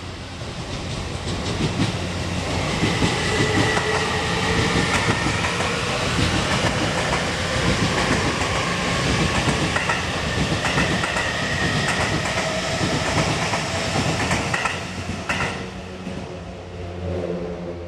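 Freight train passing close by, its wheels clattering over the rail joints with a high squeal at times. About fifteen seconds in, the train noise drops away, leaving a steady low hum.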